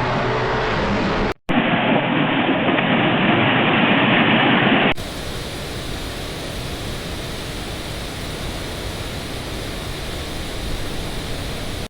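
Steady rushing noise of floodwater, heard across three clips cut together. There is a brief dropout about one and a half seconds in, and the noise becomes quieter from about five seconds on.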